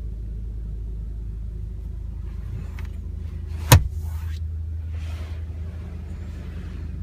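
A steady low rumble in a car cabin, with one sharp click a little over halfway through. The click is followed by soft rubbing as a hand moves over the leather rear seat.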